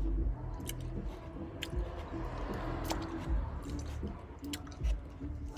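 Wet mouth sounds close to the microphone: licking and lip-smacking while tasting a Slime Licker rolling liquid candy, with scattered sharp clicks.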